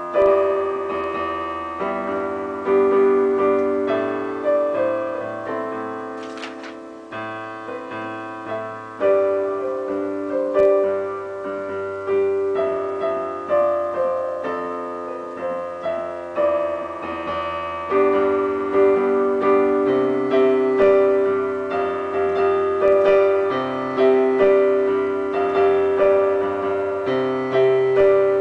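Digital piano played with both hands: chords and a melody, each note struck and left to ring and fade before the next.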